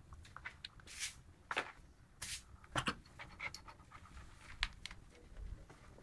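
German shepherd puppy panting: short breathy puffs about half a second apart, with a few faint clicks.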